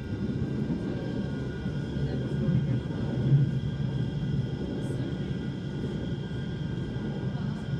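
Manchester Metrolink tram running at speed, heard from inside the car: a steady low rumble of wheels on the rails with a steady high whine from the electric drive.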